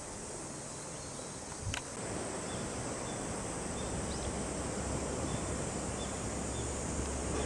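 Outdoor station ambience with a steady high insect drone, a single click near the start, then the low rumble of an electric train rolling slowly toward the platform, building from about two seconds in.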